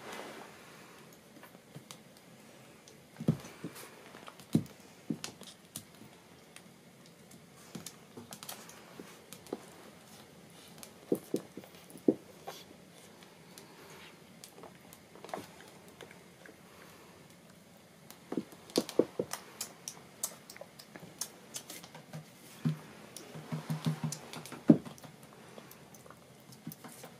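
Scattered light taps and clicks of a dog's claws and a newborn goat kid's hooves on a wooden floor as the two move about and nuzzle each other. A few sharper knocks are among them, and a short low animal cry comes a few seconds before the end.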